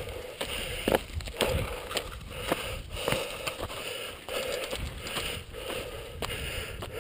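Mountain biker breathing hard in an even rhythm, about one breath every three quarters of a second, over the clicks and rattles of the bike rolling on a rough dirt trail.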